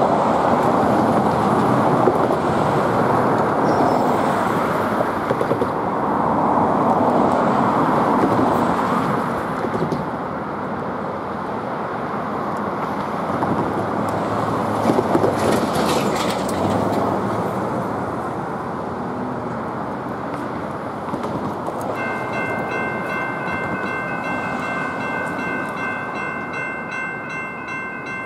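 Road traffic passing a level crossing, then about three-quarters of the way through the railroad crossing's warning bell starts ringing in steady repeats, about two strikes a second: the crossing signal has activated for an approaching train.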